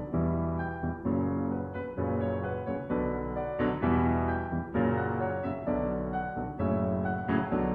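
Background piano music: struck chords and notes played at a steady pace.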